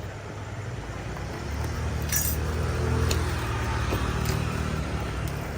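Low rumble of a passing road vehicle, swelling over a couple of seconds and easing off, with a few light clicks and clinks mixed in.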